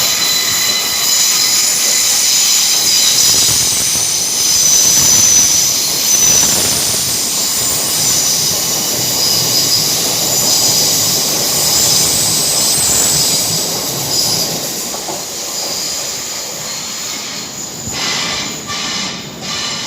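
Passenger trains running slowly through the station, their wheels squealing on the rails in several steady high-pitched tones. The squeal eases off in the last few seconds, with a few sharp clicks near the end.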